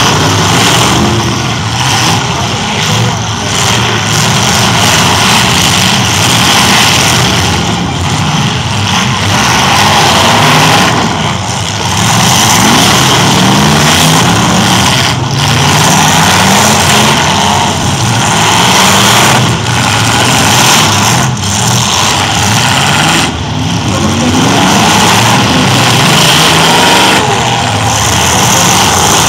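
Several demolition-derby pickup trucks' engines running loud and revving, rising and falling over and over as the trucks drive and ram each other.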